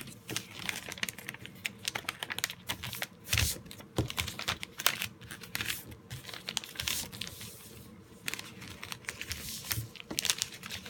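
Sheet of paper being folded and creased into a paper airplane: irregular rustling and crinkling with sharper crackles as the folds are pressed down.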